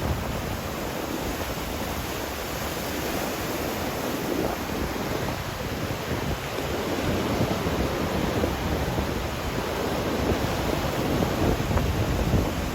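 Ocean surf breaking and washing on a beach, with gusting wind buffeting the microphone in uneven low rumbles.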